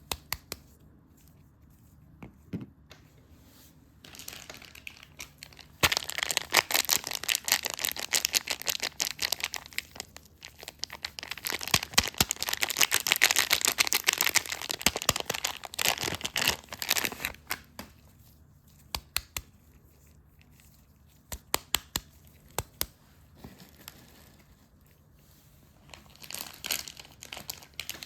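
Soap wrapping being torn open and crinkled by hand, close up. A dense run of crackling crinkles fills the middle of the stretch, with scattered single crackles before and after it.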